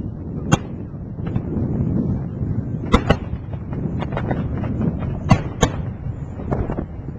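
Aerial firework shells bursting in the sky, a string of sharp bangs heard from a distance. The loudest come about half a second in, a close pair around three seconds in, and another pair at about five and a half seconds, with fainter pops between them. Under the bangs there is a steady low background rumble.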